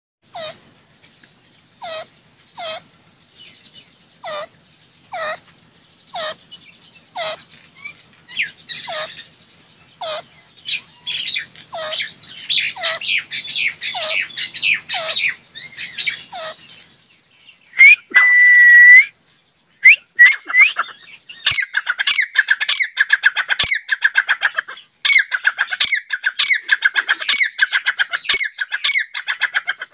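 Caged francolin (teetar, a partridge) calling loudly. It starts with spaced, downward-sliding notes about once a second, then builds into a fast, dense run of repeated call notes. A single held whistle-like note comes near the middle.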